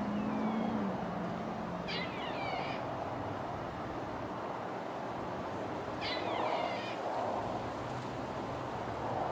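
Two short, high animal calls, each falling in pitch, about four seconds apart, over a steady background hiss.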